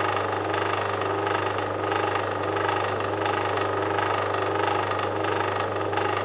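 Pillar drill motor running steadily at low speed, with a 90-degree countersink bit cutting countersinks into the back of a sheet-metal panel; a constant hum with faint scraping from the cutter.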